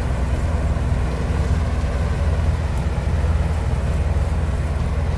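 Combine harvester running steadily as it cuts a mustard crop: an even, deep engine drone with a constant hum.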